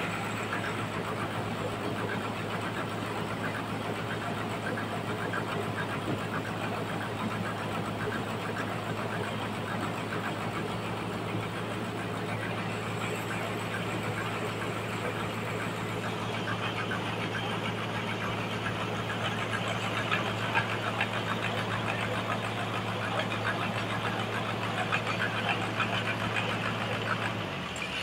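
Sawmill engine running steadily at a low hum, with irregular rattling over it in the second half; the hum stops near the end.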